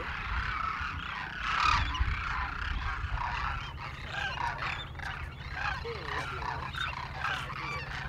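A flock of demoiselle cranes calling, many short calls overlapping without a break.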